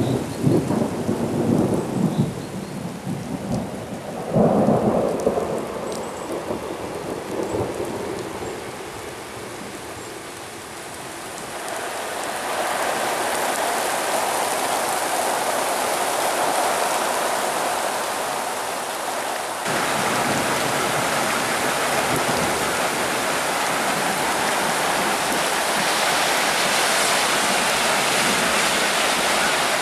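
Thunder rumbling through the first several seconds, loudest at the start and again about four seconds in, then dying away. Rain then sets in and builds to a steady downpour, stepping up in loudness about twenty seconds in.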